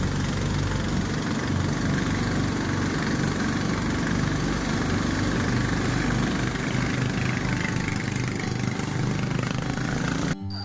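An engine running steadily with a low hum under a rushing noise, cutting off abruptly near the end.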